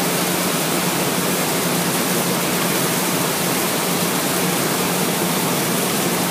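Gantry-type film slitting machine running at speed: a steady hiss-like noise with a steady low hum underneath.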